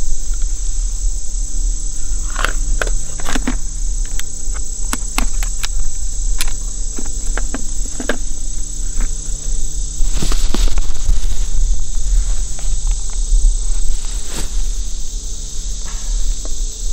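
Steady high-pitched chorus of summer insects, with scattered sharp plastic clicks and taps as a trail camera is closed and slid onto its mounting post, over a steady low hum and rumble.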